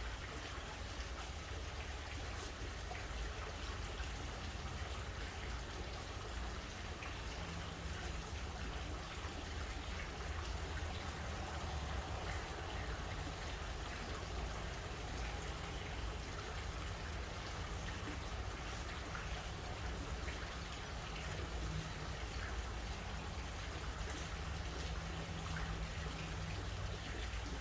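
Pool fountain splashing steadily, with a low rumble underneath.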